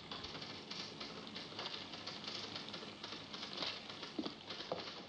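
Busy office background: typewriters clacking irregularly, with footsteps.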